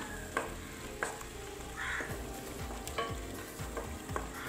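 Wooden spatula stirring thick tomato-and-spice masala in a stainless steel pot, with a few sharp knocks and scrapes against the pot over the sizzle of the masala cooking.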